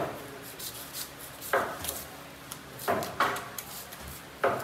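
Fish knife chopping through a milkfish onto a cutting board: about five sharp knocks at uneven intervals.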